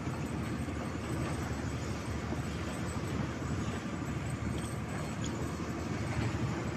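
A steady low rumble with no clear pitch, with a couple of faint ticks about halfway through.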